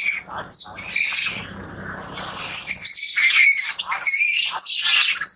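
Long-tailed macaque screaming: shrill, high-pitched cries repeated in quick succession, easing off briefly in the middle and then coming back loud.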